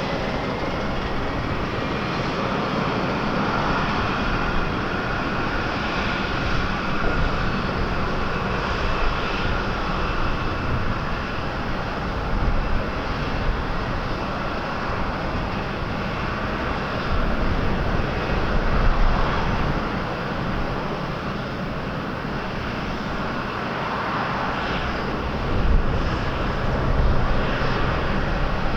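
Airliner engines: a steady rumble with a faint whine that slowly shifts in pitch, with wind gusting on the microphone.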